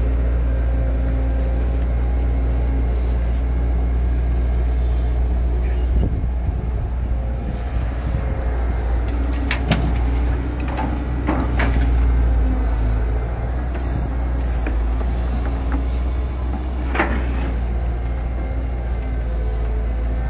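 Caterpillar tracked excavator's diesel engine running steadily as it digs soil and swings to load it into a dump truck, with a few sharp metallic clanks from the bucket and boom linkage.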